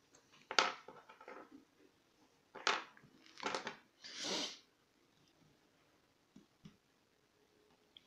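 A man coughing hard several times in quick succession, the last a longer rasping exhale, followed by a couple of faint ticks.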